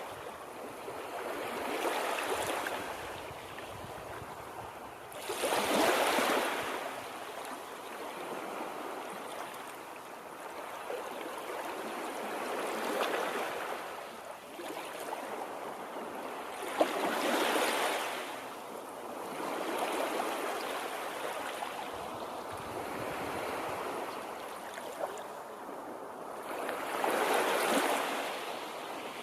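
Rushing water surging in slow swells, each rising and fading over a couple of seconds; the biggest come about six, seventeen and twenty-seven seconds in.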